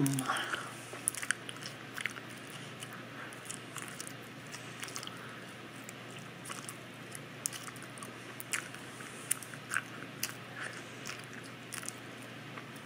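Close-miked open-mouthed chewing of soft carrot cake cupcake with cream cheese frosting: irregular wet clicks and smacks of lips, tongue and teeth.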